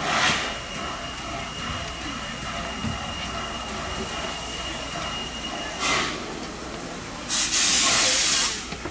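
Steam locomotive standing with a steady background hiss. Short bursts of escaping steam come just after the start and about six seconds in, and a louder burst lasting over a second comes near the end.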